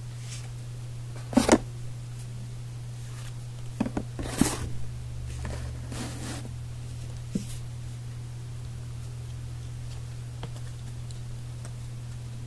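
Trading cards and card packs handled on a table: a few sharp taps and short crinkling rustles in the first half, over a steady low hum.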